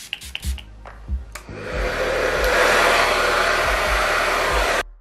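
A few quick squirts from a pump spray bottle of heat protectant. Then a hair dryer with a diffuser attachment switches on at about a second and a half, runs steadily and loudly, and stops suddenly just before the end.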